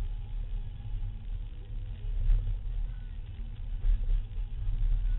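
Diesel car driving, heard from inside the cabin: a deep steady rumble of engine and road noise, with a couple of light knocks about two and four seconds in.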